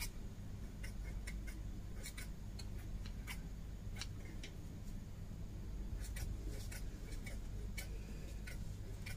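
Hair-cutting scissors snipping through a thick ponytail held in the hand: faint, irregular crisp snips and clicks. A low steady hum runs underneath.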